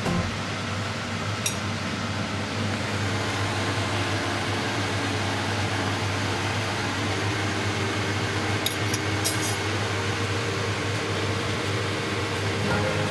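Hot oil sizzling steadily as pieces of cracker dough deep-fry in a stainless-steel saucepan. A few light metal clicks, about a second and a half in and again around nine seconds, come from the fork and spoon against the pan.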